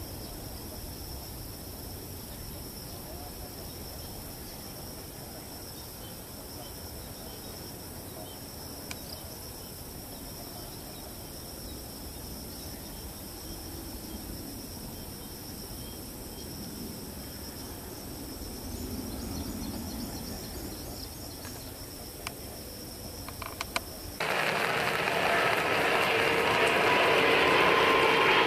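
Faint, steady distant rumble of a Boeing 777-300ER's GE90 jet engines as it climbs away after take-off, under a steady high insect buzz. Near the end the sound cuts abruptly to much louder jet engine noise with a whine, from an Airbus A330-300 on approach.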